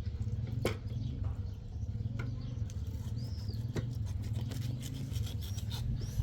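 A steady low hum with scattered sharp clicks, and a few short high chirps like a small bird's, about halfway through and again near the end.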